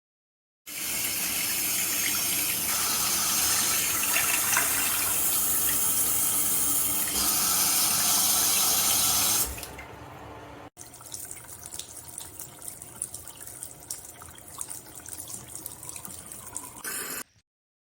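Water from a waterfall-spout bathroom faucet pouring steadily into the sink. About nine and a half seconds in, the sound drops sharply to a much quieter, uneven trickle, which stops suddenly near the end.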